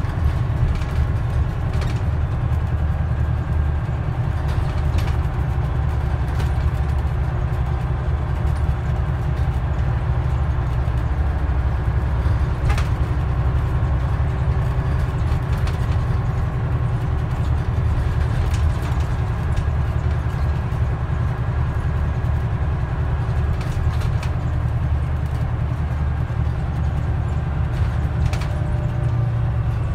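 Scania N94UD double-decker bus heard from inside on the upper deck while it drives along: a steady low diesel drone with a few faint whining tones, and scattered small rattles and knocks from the body. Near the end the tones fall slightly as the bus slows.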